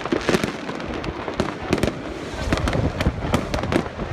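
Many fireworks going off at once: a dense, irregular run of sharp bangs, several a second, with no let-up.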